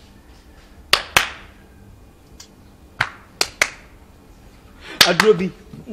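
A series of sharp, clap-like smacks in a small room: two about a second in, three close together around three seconds in, and two more near the end, followed by a brief vocal sound.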